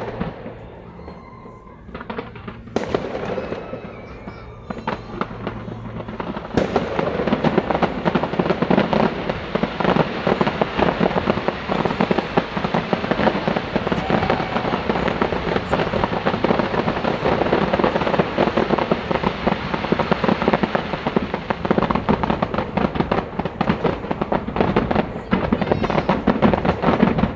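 New Year fireworks display bursting: a few separate bangs at first, then from about six seconds in a dense, continuous barrage of rapid bangs and crackling.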